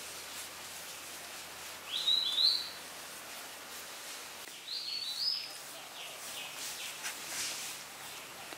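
Two short pairs of high, rising squeaks from a small animal, about two and a half seconds apart, over faint background hiss.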